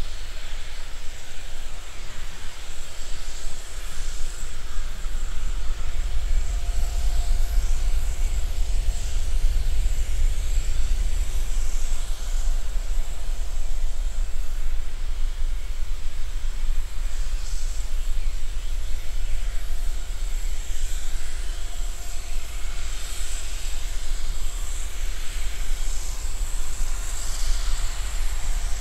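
Boeing 787-9 airliner's jet engines running at low power as it rolls along the runway: a steady deep rumble with a faint whine that comes and goes.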